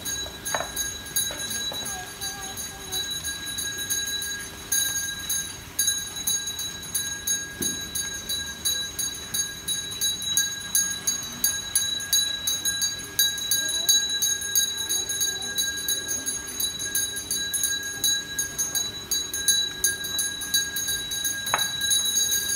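Small metal hand bell shaken rapidly and without pause, its clapper striking many times a second over a steady bright ringing tone, in the manner of a ritual bell rung at a temple altar.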